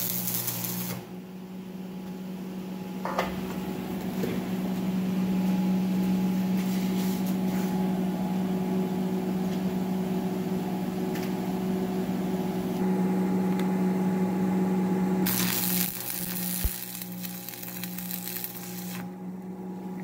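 Stick welding with a Lincoln AC buzz-box welder: the arc crackles and hisses for about the first second and again for about four seconds near the end. A steady low hum runs underneath throughout.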